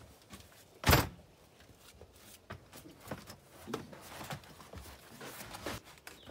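One loud thunk on an aluminium boat's bow deck about a second in, then scattered rustling and light knocks as a heavy canvas tent is unrolled and spread across the deck.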